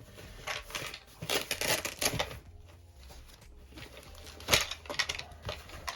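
Small clicks, scrapes and rustling from handling the parts of an iPod Classic's case and bezel, with one sharp click about four and a half seconds in.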